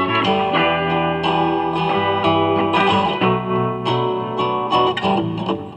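A guitar being played: plucked notes and chords ringing over one another, several notes a second.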